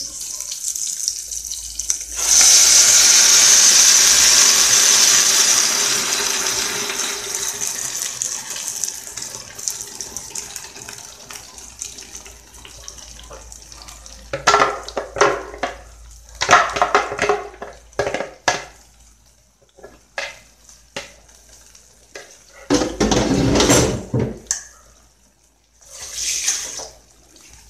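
Blended potato-and-kale soup pouring from a blender jar into a saucepan: a loud splashing pour that starts about two seconds in and thins out over some ten seconds. Several short knocks and clatters follow.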